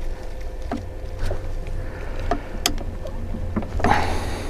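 Light scattered clicks and ticks of a small screwdriver turning the screws of a rifle's front sight into a steel barrel. A brief scraping rustle of handling comes near the end.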